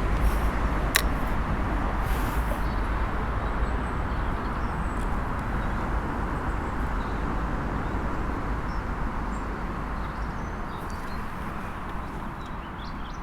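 Steady rushing noise with a deep rumble underneath, slowly fading away.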